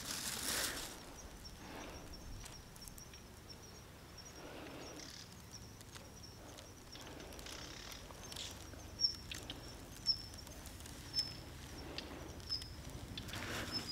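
Quiet outdoor ambience: a faint, steady high-pitched trill of an insect or bird, pulsing in places. A brief rustle comes at the start and a few soft clicks later on.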